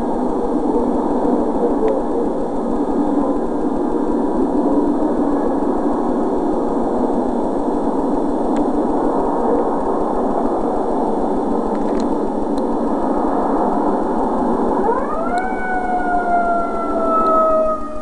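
A siren, likely a fire engine's, winds up quickly about three seconds before the end and then slowly falls in pitch. Beneath it runs a steady, noisy drone, all in heavily distorted audio.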